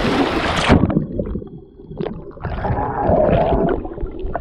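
Waterfall roar that cuts off abruptly under a second in as the microphone goes underwater. After that the sound is muffled underwater gurgling and bubbling, with a few knocks.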